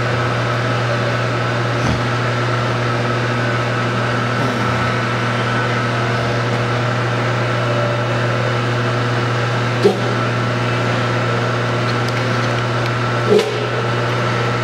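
Steady machinery hum, deep and even with a thin high whine over it, with two brief knocks near the end.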